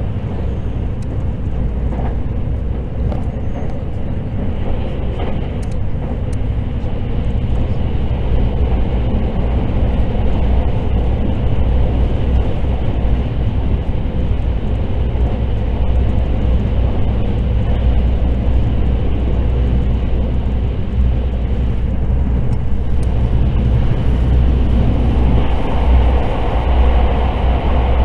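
Cabin noise of the Hakutaka limited express electric train running at speed: a steady low rumble of wheels on rail with a hiss of running noise. It grows louder about ten seconds in and again near the end as the train runs through a tunnel.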